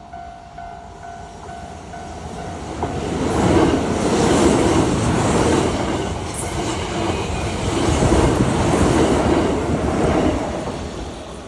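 Kyoto Municipal Subway 10 series electric train running past. Its rumble builds from about two seconds in, is loud from about four to ten seconds, and falls away near the end.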